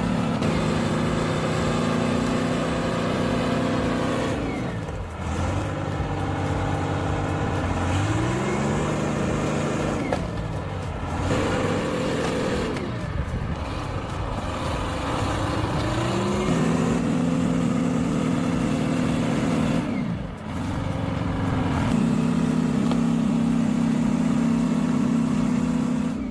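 Heavy machine's diesel engine running under load, its revs climbing twice and dropping off briefly a few times between.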